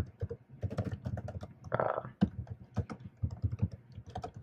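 Typing on a computer keyboard: an uneven run of quick keystrokes with a few short pauses.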